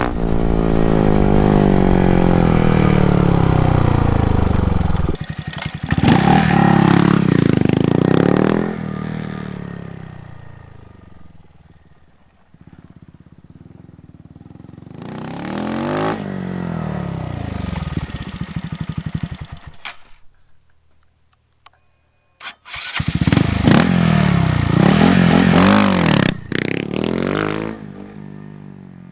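Honda Monkey's small single-cylinder engine through a Termignoni full exhaust, revving hard and running up through the gears in several passes: loud and close, then fading into the distance, coming back, and dropping out briefly near the middle of the stretch before another loud pass that fades away.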